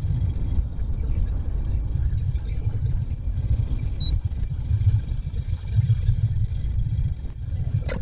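Low, steady rumble of a car's engine and tyres on the road, heard from inside the cabin.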